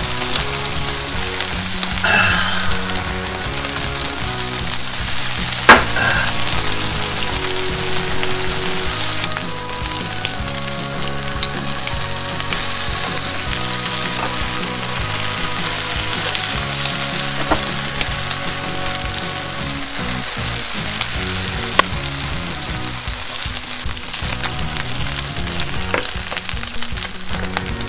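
Pork belly fat and rice sizzling on a foil-lined tabletop grill pan, with a spoon stirring and scraping as kimchi fried rice is made. A sharp click about six seconds in.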